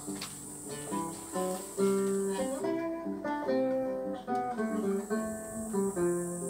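Guitar duet playing a rumba: a melody of plucked, ringing notes over a plucked accompaniment.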